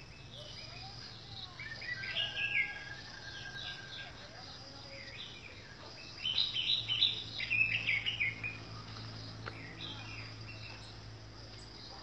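Orange-headed thrush singing: two bursts of quick, varied high phrases, one about two seconds in and a louder one from about six to eight and a half seconds. A steady high insect drone runs underneath.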